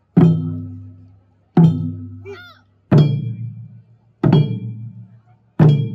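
Taiko ensemble of nagado-daiko barrel drums struck in unison with wooden bachi sticks: five slow, evenly spaced deep strikes about one every 1.3 seconds, each ringing out before the next.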